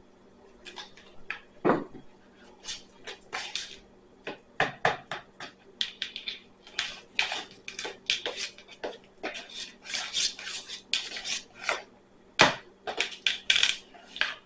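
Slime being stirred in a bowl with a utensil: an irregular run of scraping and clinking strokes against the bowl, with two louder knocks, one about two seconds in and one near the end.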